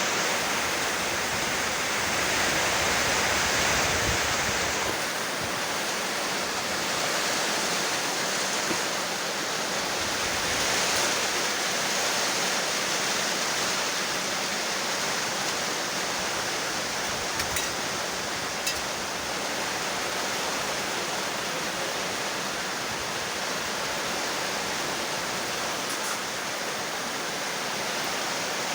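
Steady rainfall, an even hiss of falling rain with a few faint ticks of drops.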